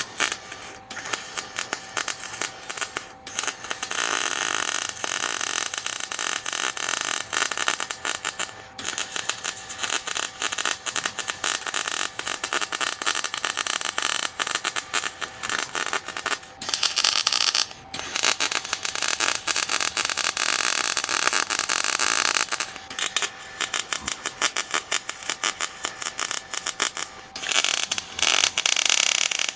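Electric arc welder laying beads, a steady dense crackle and sizzle, built up as weld on a worn bench vise screw. The arc stops briefly about 9 seconds in and again about halfway through, then strikes up again.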